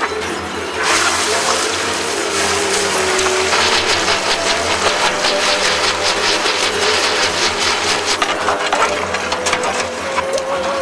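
Water jetting onto a red-hot, clay-packed cowbell in a quench tank. It hisses and sizzles into steam, with dense crackling from a few seconds in, over the splash and churn of the water.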